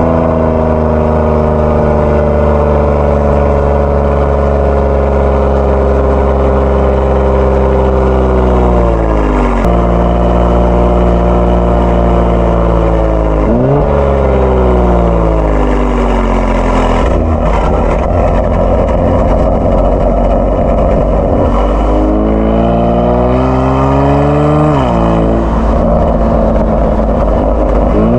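Kia Stinger 3.3 twin-turbo V6 with an aftermarket JSR Performance exhaust, heard while driving: the engine note rises and falls with throttle and gear changes, with several sudden pitch jumps at shifts. In the middle, the steady note gives way to a rougher, noisier stretch before the revs climb again.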